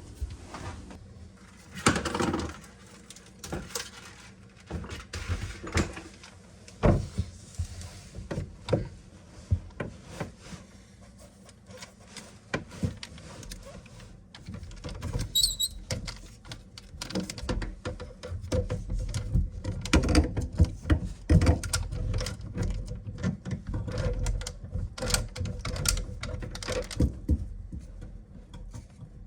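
Irregular knocks, clicks and clatter of tools and plumbing parts being handled in the cabinet under a kitchen sink during a faucet removal, with a brief high squeak about halfway through.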